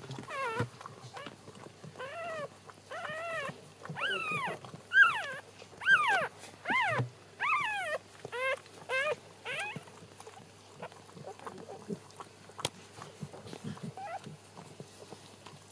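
Newborn Shetland sheepdog puppy crying: a series of short, high-pitched squeals that rise and fall, about one a second, stopping after about ten seconds, with one faint squeal near the end.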